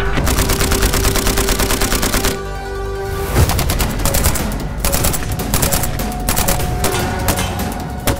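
Suppressed RM277 bullpup rifle firing polymer-cased 6.8×51mm rounds in rapid strings of shots, over background music. The firing breaks off for about a second in the middle, where only the music plays, then resumes in fast bursts.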